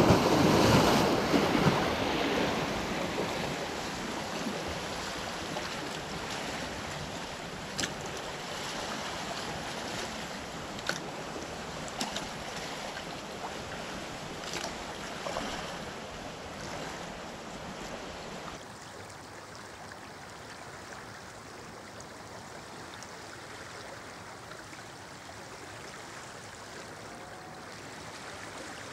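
Tidal river water surging and churning against the bank in the aftershock waves behind the Severn Bore, loud at first and dying down over the first few seconds, with a few faint clicks. About two-thirds of the way through it gives way to a quieter, steadier rush of the flooding tidal flow.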